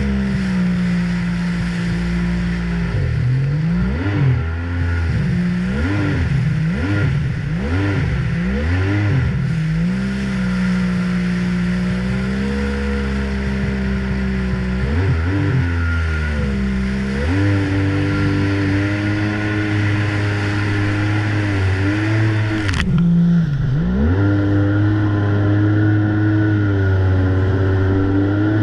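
Yamaha Wave Venture 1100's three-cylinder two-stroke engine running under way, its revs rising and falling several times in quick succession in the first part, then holding steady, stepping up, dipping once and climbing again near the end. Water rushes and sprays against the hull throughout.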